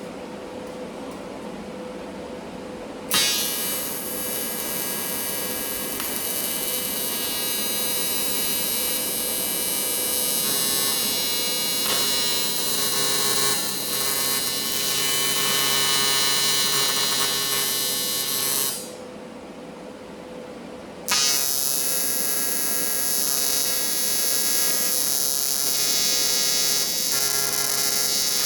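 AC TIG welding arc on aluminum buzzing steadily, struck suddenly about three seconds in, broken off for about two seconds near the end, then struck again. A fainter steady machine hum underlies it before the arc starts.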